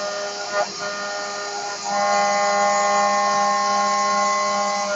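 CNC milling machine's 12 mm end mill cutting V95 high-strength aluminium alloy: a steady whining tone with many overtones, which gets louder about two seconds in and holds.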